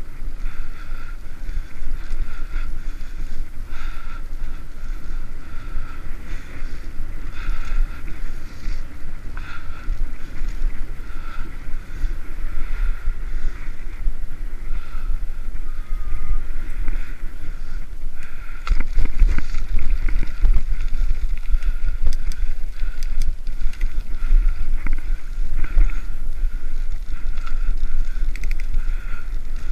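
Wind buffeting the microphone and tyre rumble from a hybrid bicycle ridden at speed on a paved trail, with a faint chirp that comes back about every two seconds. About two-thirds of the way through, the rumble gets heavier and rougher as the surface turns to gravel.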